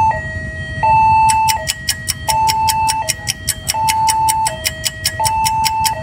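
Railway level-crossing warning alarm sounding: an electronic two-tone signal alternating between a low and a high tone about every three-quarters of a second. From about a second in, a rapid, regular clicking runs along with it.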